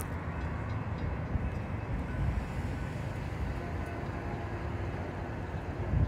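Freight train rolling slowly past: a steady low rumble with a few faint, steady high tones above it. A short sharp click right at the start.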